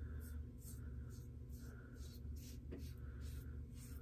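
Double-edge safety razor scraping through lather and stubble on a scalp in short, faint strokes, about two a second: an against-the-grain pass on the back of the head.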